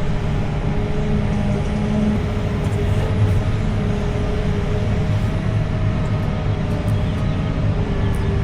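Heavy construction machinery engine running steadily, a constant low drone with a steady hum.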